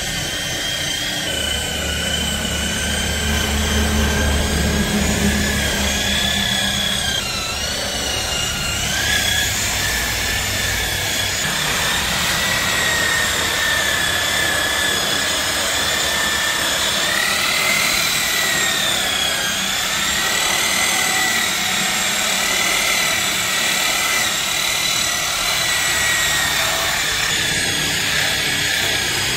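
Electric car polishing machine running steadily with a high motor whine that dips and rises in pitch several times.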